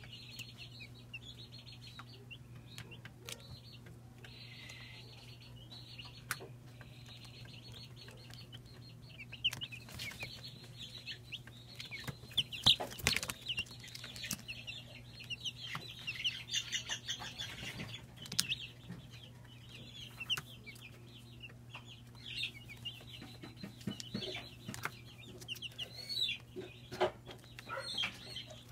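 A brood of five-day-old broiler chicks peeping, many short high calls overlapping without a break, busier in the second half. A few sharp clicks stand out, the loudest about halfway through, over a steady low hum.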